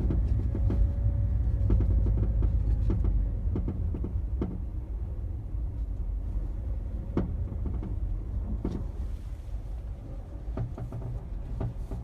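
Mazda 3 BM driving slowly with a low rumble, and sharp irregular knocks from underneath, a few at a time, heard over it. The owner suspects the crankcase guard, with snow or ice caught in its gaps, as the cause of the knocking, which happens only in freezing weather.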